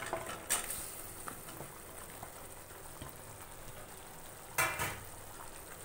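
Sambar base simmering in a pan with a faint, steady bubbling sizzle. Cut drumstick pieces are dropped in with a couple of light clicks in the first second, and there is a louder clatter about four and a half seconds in.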